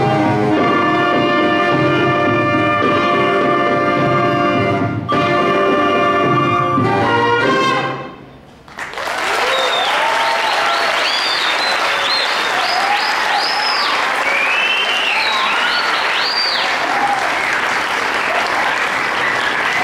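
Youth wind band of clarinets, flutes, saxophones and brass playing loud held chords to the end of a piece, stopping about eight seconds in. After a brief pause the audience breaks into applause with high-pitched cheers.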